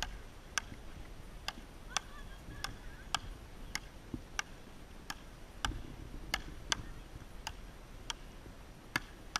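Frescobol rally: a rubber ball struck back and forth with wooden paddles, a sharp hollow click about every half second to two-thirds of a second, about fifteen hits in a row.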